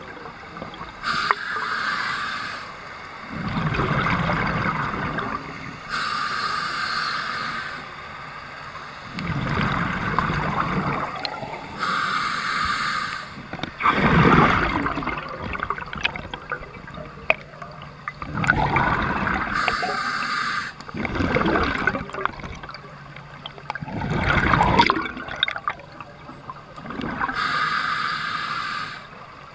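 Scuba diver breathing through a regulator underwater, five slow breaths: each inhale is a hiss through the demand valve, followed by a gurgling rush of exhaled bubbles.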